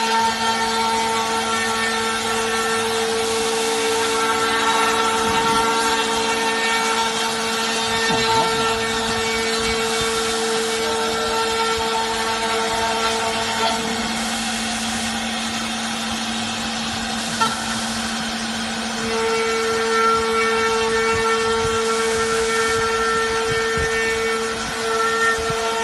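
Remax-1385 CNC router running, its spindle giving a steady high whine over a hiss of machine noise. The strongest tone drops out for about five seconds midway and then returns, with a single sharp click about two-thirds of the way through.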